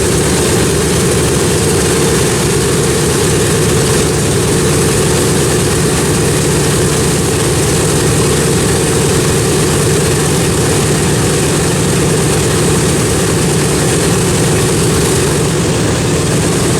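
Piston engines and propellers of a World War II warbird running with a steady, heavy drone.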